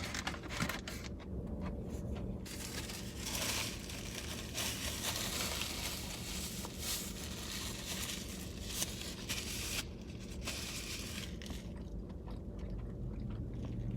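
Irregular crinkling and rustling of a fast-food sandwich wrapper, with chewing, as a chicken sandwich is eaten.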